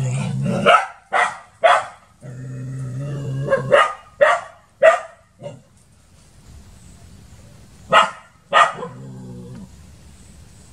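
A dog barking at a monitor lizard in short, sharp barks in three bunches: three barks in the first two seconds, four more a few seconds in, and two near the end, with a long, steady low growl between the first bunches.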